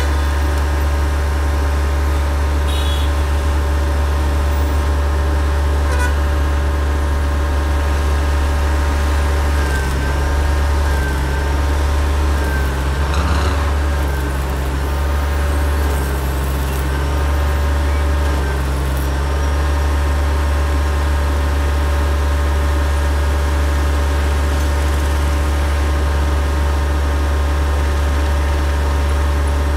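A vehicle engine running steadily: a loud low hum with a steady pitch that wavers up and down for several seconds from about ten seconds in.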